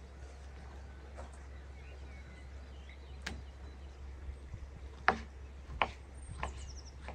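Kitchen knife working raw lamb liver on a wooden cutting board: about five separate sharp taps of the blade on the board, the loudest about five seconds in, over a steady low background hum.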